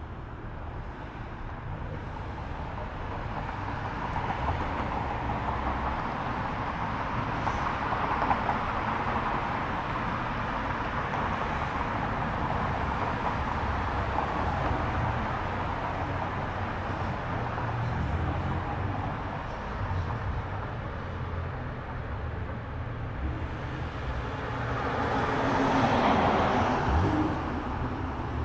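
Cars driving past at low speed, a steady mix of engine and tyre noise, with one passing louder and closer near the end.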